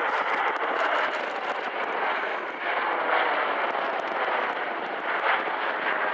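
Jet roar from a formation of BAE Hawk T1 jet trainers with Rolls-Royce Turbomeca Adour turbofans flying overhead: a continuous rushing noise that swells and dips slightly.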